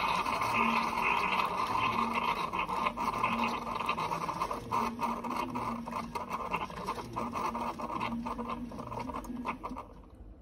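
Keurig single-serve coffee maker brewing: a steady hiss of coffee streaming into a glass mug over a low pump pulse about every three-quarters of a second, with drips and sputters growing denser. The flow cuts off suddenly about ten seconds in as the brew finishes.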